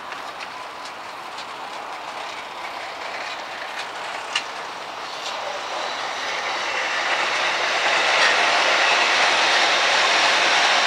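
Approaching freight train, the noise of its wheels on the rails growing steadily louder, with scattered clicks from the rail joints and one sharper click about four seconds in.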